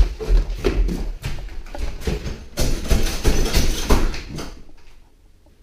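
Hurried footsteps thumping and knocking on wooden stairs and floorboards, then scraping and rattling as a door is worked. The sound dies away about four and a half seconds in.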